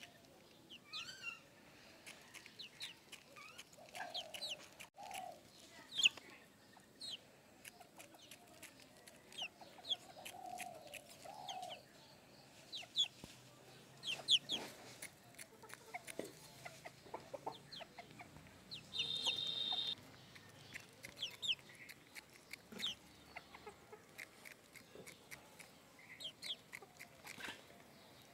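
A rooster pecking rice grains from a bare hand: quick, irregular beak taps and clicks, with low clucks now and then. A short high-pitched tone lasting about a second comes about two-thirds of the way through.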